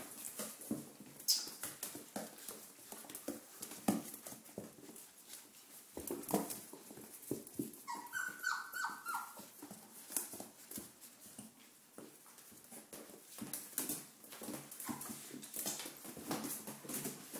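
Four-week-old Doberman Pinscher puppies feeding: a steady patter of small clicks and ticks, with a short run of high puppy whimpers about eight seconds in.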